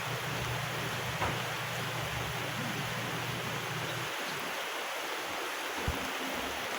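Steady rushing noise of hurricane wind and rain, with a low hum underneath that cuts out about four seconds in.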